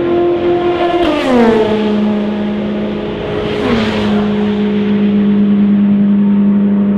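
Endurance race cars passing at speed, two in quick succession, each engine note dropping sharply in pitch as the car goes by, then a steady lower engine drone.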